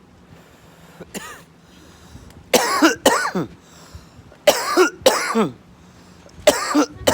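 Deliberate, forced coughing for a coughing contest: a short, faint cough about a second in, then three loud double coughs about two seconds apart, each ending in a throaty sound that drops in pitch.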